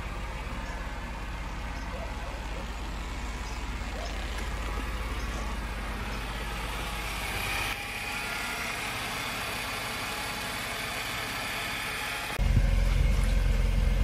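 Mercedes W124 300E's 3.0-litre M103 straight-six engine idling steadily. About twelve seconds in it suddenly becomes louder and deeper.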